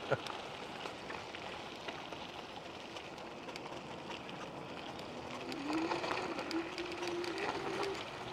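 Steady rolling noise from riding a bike along a dirt road. About five seconds in, a whine comes in, rising in pitch and then holding steady.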